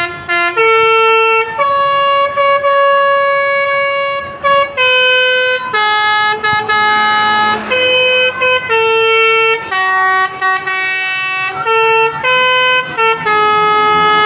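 A bus's Basuri telolet musical horn playing a tune: a string of loud horn notes stepping up and down in pitch, some held about a second and some clipped short, with brief breaks between them.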